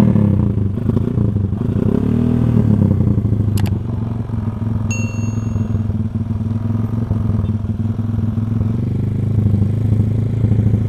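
Honda Tiger motorcycle's single-cylinder engine running while it is being tuned: revved briefly twice near the start, then settling to a steady idle. A sharp click, then a short ringing ding about five seconds in.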